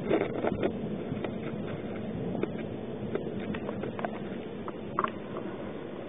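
Distant combat fire from Grad multiple rocket launchers and return fire: a steady low rumble with irregular sharp cracks scattered through it.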